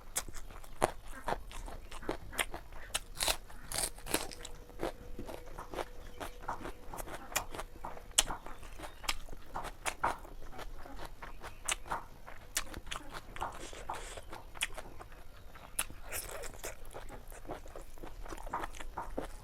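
Close-miked chewing and crunching of chicken feet and gizzard curry: irregular crisp crunches, cartilage and small bones cracking between the teeth, with wet mouth sounds.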